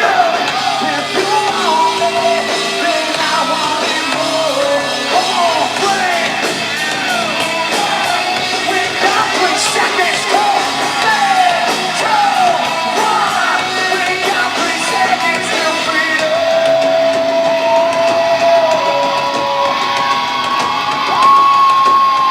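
Rock band playing live, with loud sung and yelled vocals over electric guitars and drums; long held high notes ring out near the end. The sound is thin, with almost no low bass.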